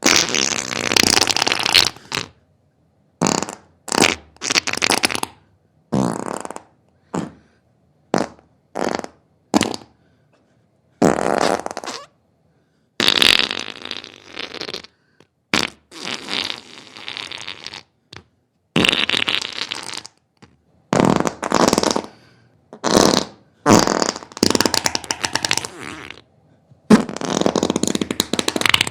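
Diarrhea sound effects: a string of short flatulent bursts, some under half a second and some lasting a second or two, each cut off by dead silence before the next.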